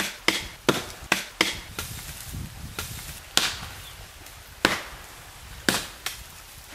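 Axe strikes on a rotten birch trunk, sharp chopping knocks. A quick run of about six blows comes in the first two seconds, then a few more about a second apart.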